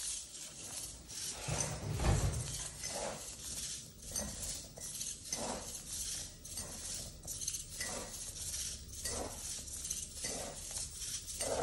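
Hexapod robot walking on a wooden floor: its hobby servo motors whirring and its plastic feet clicking and clattering on the boards in a repeating stepping rhythm as it pushes a ceramic mug along. A low thud about two seconds in.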